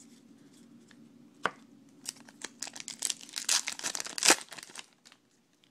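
A baseball card pack's wrapper being torn open by hand and crinkling. A single sharp click comes about a second and a half in, then a dense run of crackles lasting about two and a half seconds, loudest near its end.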